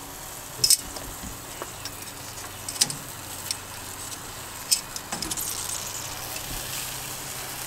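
Sausages and chicken breasts sizzling on the grate of a charcoal grill, a steady hiss that grows a little louder about five seconds in. A few sharp clicks of metal tongs on the grate and food come through it.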